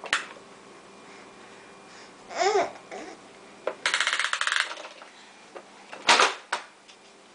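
A pet's vocal chatter: a short call that rises and falls about two and a half seconds in, a fast rattling chatter around four seconds, and a sharp loud burst near six seconds.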